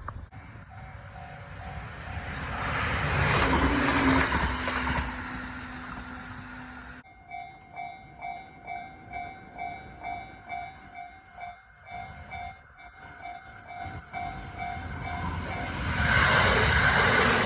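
Japanese railway level-crossing warning bell ringing its repeating "kan-kan" alarm, about one and a half strokes a second, faint at first and loud from about seven seconds in. A rushing noise that swells and fades under it early on and swells again near the end is a train passing.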